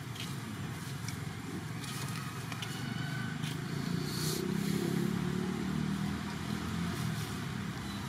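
Low, steady engine rumble of a motor vehicle passing at a distance, swelling around the middle and easing off near the end, with a few faint light ticks over it.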